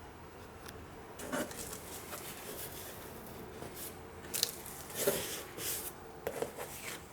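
Hands handling the packaging of a Pokémon trading-card product: irregular rustling and rubbing with a few sharp clicks, starting about a second in.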